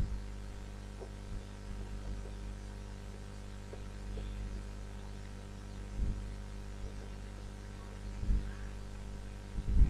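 Steady low electrical mains hum in the recording, with two brief faint low bumps about six and eight seconds in.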